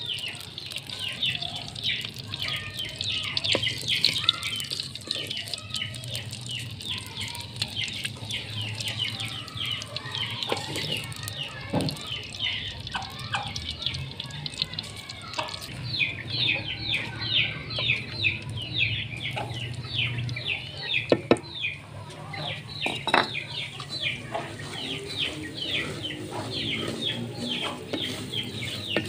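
Birds chirping without pause in fast, high, falling chirps, several a second. A few sharp knocks, the loudest about 21 seconds in, come from a wooden spatula against the clay cooking pot.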